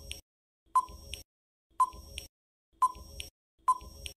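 Countdown-timer sound effect: four short electronic beeps, about one a second, each dying away quickly, ticking off the time allowed to answer.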